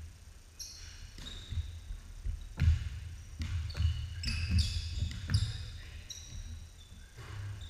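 A basketball bouncing on a hardwood gym floor in irregular thuds that echo around the gym, mixed with several short, high-pitched sneaker squeaks from players cutting and stopping on the court.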